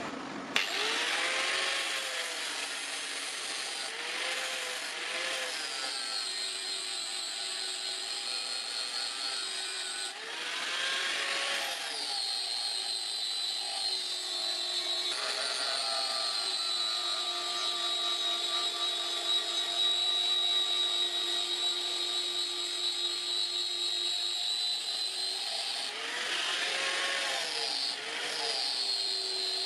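Electric angle grinder with a flap disc grinding a steel knife blade. It gives a steady high whine that wavers in pitch a few times, with stretches of harsher grinding noise.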